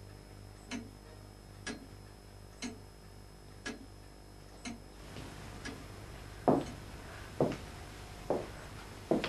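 A clock ticking about once a second, followed about six seconds in by a person's sharp, gasping breaths at the same slow pace.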